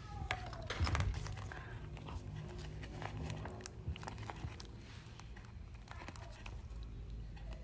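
Paper rustling and crinkling in scattered short crackles and light taps as a handmade paper squishy is handled, loudest about a second in.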